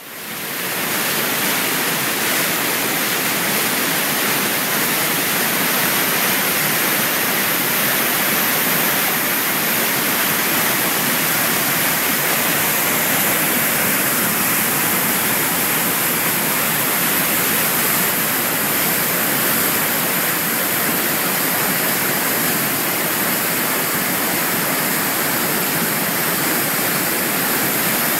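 Athabasca Falls, the Athabasca River's waterfall plunging into its narrow rock gorge, making a loud, steady rush of falling water that fades in over the first second.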